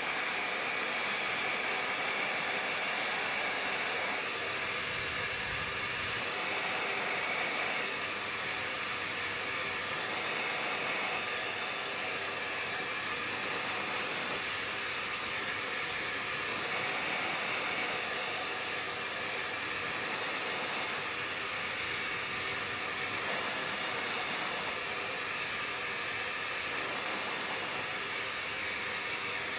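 Remington Copper Radiance handheld hairdryer blowing steadily on its high heat setting, its rushing air easing slightly every few seconds as the dryer is shaken and moved over the brush.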